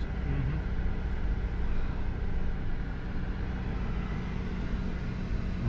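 Steady low rumble of a car driving slowly, heard from inside the cabin: engine and tyre noise with a constant hum.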